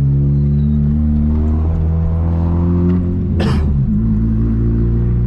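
Volkswagen Gol G2's 1.0-litre 8-valve four-cylinder engine running steadily on the road through a 4-inch HKS sport muffler, with a steady low drone. A brief burst of noise comes about three and a half seconds in.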